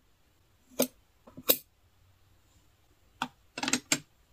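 Sharp metal clicks of a gold-tone candle wick trimmer: a few single clicks in the first second and a half, then a quick run of clinks near the end as it is laid on a metal tray.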